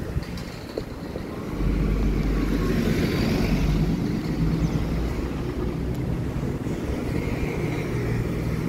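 Road traffic passing on the street beside a moving bicycle, cars going by, with a low rumble that grows louder about a second and a half in.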